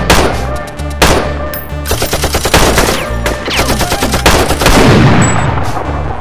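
Rapid volleys of film gunfire sound effects, pistol shots in fast runs, with action music carrying on underneath.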